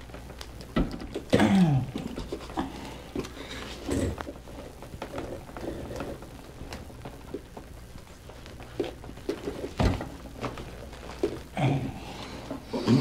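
Vinyl 45 playback of a live arm-wrestling match recording: short strained vocal sounds, one falling in pitch, scattered knocks and thumps, and shuffling over a steady low hum.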